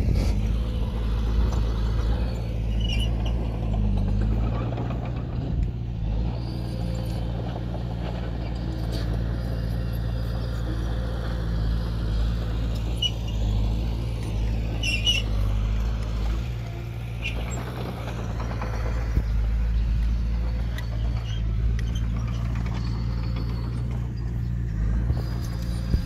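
Heavy diesel earth-moving machinery running steadily, its engine rising and falling a little under load, with occasional short squeaks and clanks.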